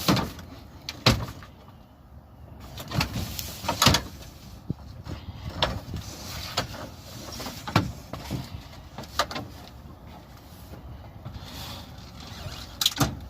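Knocks, clunks and rattles of glass-paned window doors being taken off and handled, with a sharp knock every second or few.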